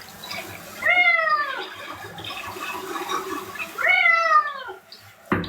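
Pet cat meowing loudly while being bathed: two long, falling meows about three seconds apart, with faint water noise between them. There is a short knock just before the end.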